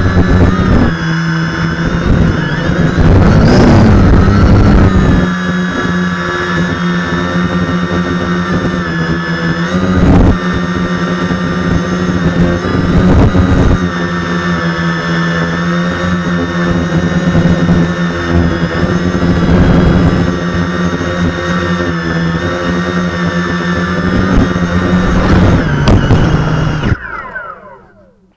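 Quadcopter's electric motors and propellers buzzing steadily, heard from the camera mounted on the drone. Near the end the motors spin down with a falling pitch and stop as it lands.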